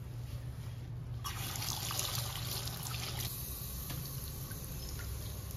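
Water from a kitchen tap starts suddenly about a second in and runs into the sink, loudest for about two seconds and then softer.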